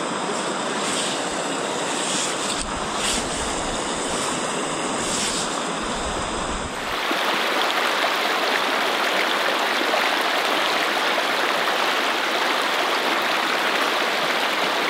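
Wind gusting on the microphone over water lapping at a lake shore. About seven seconds in, this gives way suddenly to a shallow creek rushing steadily over rocks, which is louder.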